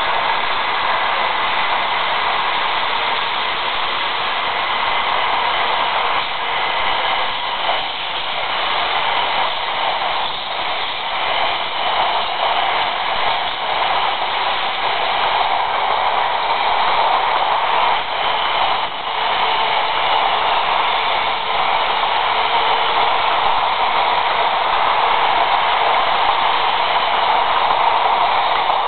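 700 series Shinkansen pulling out of the station, its carriages running past at close range with a steady rushing noise of wheels and motors. It gets slightly louder toward the end as the train gathers speed.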